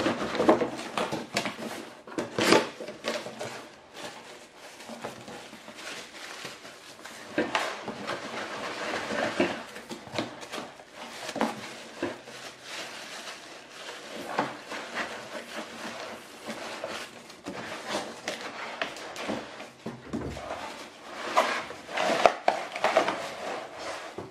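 Cardboard box being opened by hand: flaps pulled up and folded back, the cardboard rubbing, creasing and scraping, with irregular knocks throughout.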